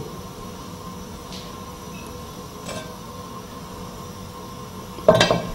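Steady low background hum with a faint thin tone running through it, with a short loud sound about five seconds in.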